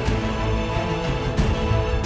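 Background music: sustained tones over a pulsing low bass.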